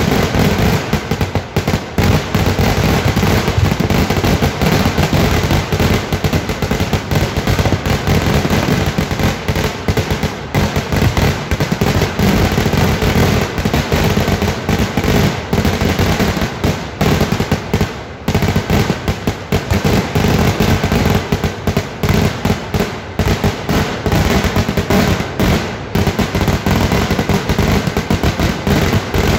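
Festival fireworks (vedikettu): a dense, unbroken barrage of rapid bangs and crackling, with many blasts overlapping and hardly a gap.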